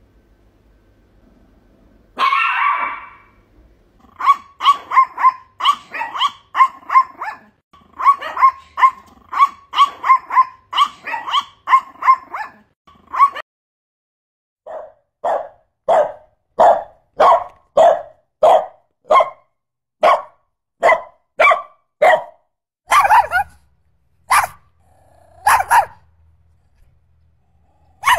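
Chihuahua barking: one longer, rougher bark about two seconds in, then fast runs of short, sharp barks, about two a second, with a brief break midway. The later run is lower in pitch, and a few spaced barks follow near the end.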